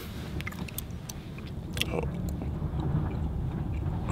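Car cabin noise while driving: a steady low rumble of engine and road, with scattered small clicks.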